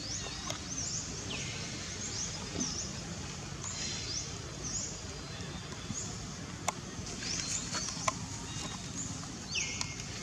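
Repeated short high-pitched chirps, roughly one a second, with a couple of longer falling calls and a few sharp clicks over a steady low background hum.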